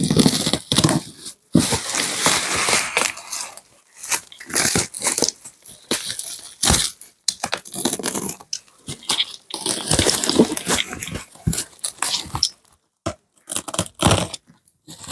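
Gift packaging being torn open and crumpled by hand, in irregular rustling bursts with short pauses between them.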